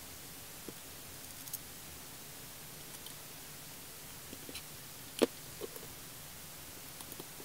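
Light clicks and taps of small plastic parts being handled as a small cooling fan is fitted into a 3D-printed bracket, with one sharper click about five seconds in, over a steady faint hiss.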